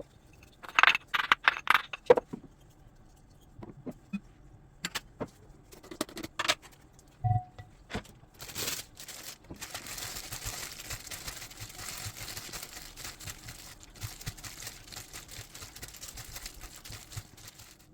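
Sharp clinks and clatter of dishes and metal utensils, with scattered knocks. This gives way to a steady crackling hiss for about the last nine seconds.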